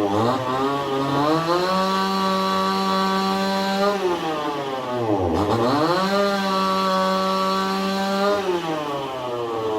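Two-stroke chainsaw engine revving: it winds up to a steady high speed, drops back sharply about five seconds in, winds up again and holds, then falls back toward idle near the end.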